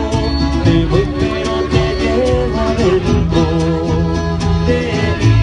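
Mariachi band playing an instrumental passage: violins carry the melody over strummed guitars and a steady bass line.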